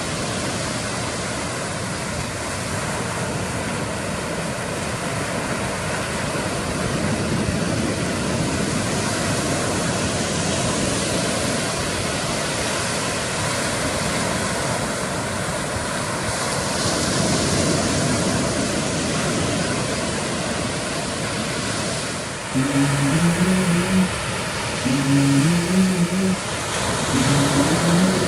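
Ocean surf breaking and washing on a beach: a steady rush of noise that slowly swells and eases. About 22 seconds in, a melodic music track starts over it.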